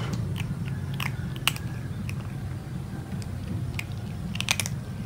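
Kitten eating dry kibble: irregular sharp crunches as it bites and chews the pellets, with a quick cluster of crunches near the end, over a steady low hum.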